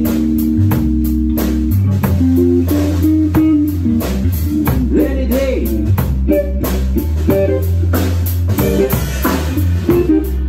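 A blues rock band plays live: electric lead guitar bending notes over electric bass and a drum kit.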